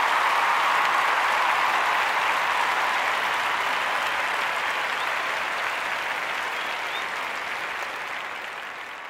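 Crowd applause: a dense, steady clapping that slowly fades out toward the end.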